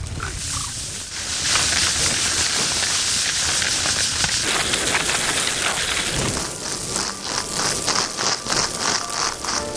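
Rapeseed being sifted through a bamboo sieve: a dense, rain-like hiss of small seeds pouring and pattering through the mesh. In the second half it becomes a rhythmic swish as the sieve is shaken, about three strokes a second.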